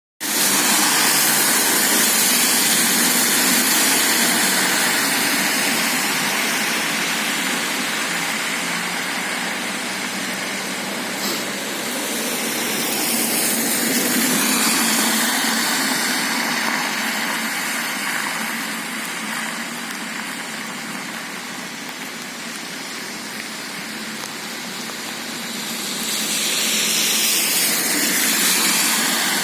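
Steady loud rush of rainwater flooding a street. It swells twice, about halfway through and near the end, as vehicles pass through the water.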